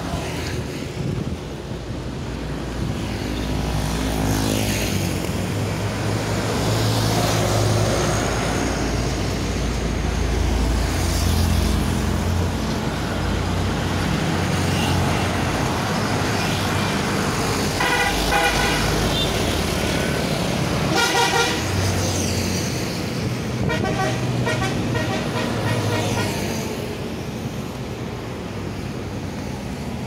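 Highway traffic driving past, with passing engines droning, and several multi-tone vehicle horn blasts in the second half.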